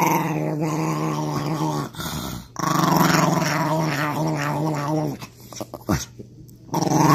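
Small Chihuahua-type dog growling with teeth bared at a treat held out by hand. It gives two long growls with a short break about two seconds in, goes quiet about five seconds in, and starts growling again near the end.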